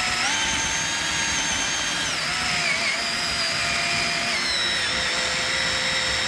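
Power drill running with a reverse (left-hand) drill bit pressed into a seized screw on a Nissan VG30DE oil pump's back plate, drilling it loose. The motor whine rises just after the start, then drops in two steps, about two and four seconds in, as the bit loads up.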